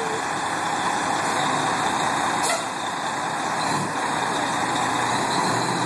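Fire engine's engine running steadily as the truck pulls out, with one short sharp burst about two and a half seconds in.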